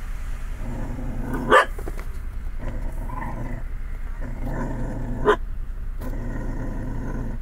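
Dog growling low and steadily, breaking into two sharp barks, one about a second and a half in and another about five seconds in.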